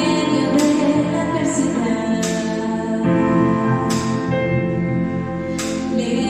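Worship music with singing over sustained held chords, and a sharp percussive stroke, like a cymbal, about every 1.7 seconds.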